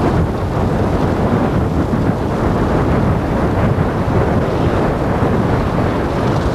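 Loud, steady wind buffeting the microphone over a low vehicle rumble.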